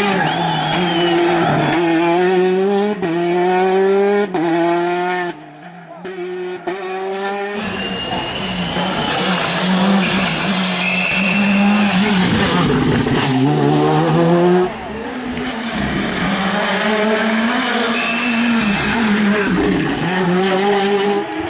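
R5 rally cars with turbocharged four-cylinder engines driven flat out past the roadside, engine note climbing through the gears with sharp drops at each change. Tyres squeal in several places as the cars are thrown through tight corners, with one brief quieter gap about five seconds in.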